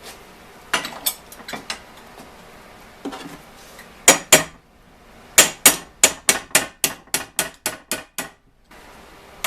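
Hammer striking metal pins and pedal parts: a few scattered taps, two harder blows, then a quick run of about a dozen blows at roughly four a second that stops suddenly.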